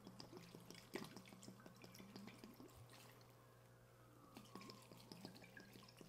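Faint patter and dripping of apple cider vinegar poured from a plastic bottle onto shredded cabbage and vegetables in a stainless steel bowl, letting up briefly in the middle before pouring resumes.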